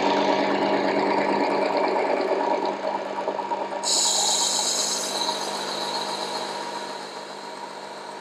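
Work Sharp Ken Onion Edition electric knife sharpener with its blade grinding attachment, the motor and medium-grit abrasive belt running steadily. About four seconds in a higher hiss joins for about a second as the knife blade meets the belt, and the whole sound grows quieter toward the end.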